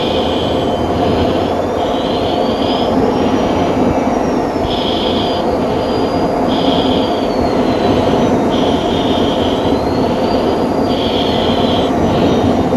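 Steady cockpit noise inside an F-16 in flight, its jet engine and rushing air as heard on the cockpit recording. A high tone pulses on and off over it about once a second.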